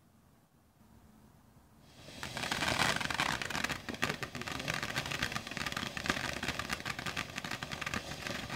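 Ground fountain firework spraying sparks with a steady hiss and rapid crackling, starting suddenly about two seconds in.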